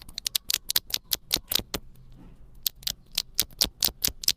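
Mechanical keyboard switches of an Epomaker Hack 59 being pressed in quick succession, giving a rapid run of sharp clicks, about five or six a second, with a short pause about two seconds in.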